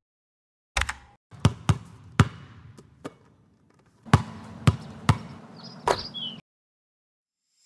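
A basketball bouncing on a hard floor, about nine bounces at uneven spacing that stop about six and a half seconds in, with a short high squeak near the last bounce.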